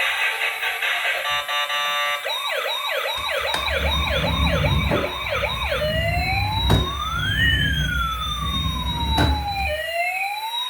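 Electronic toy siren: a short tinny tune, then a fast yelping siren of about three quick rising sweeps a second, changing about six seconds in to a slow wail with two tones sweeping up and down across each other. Two sharp clicks sound during the wail.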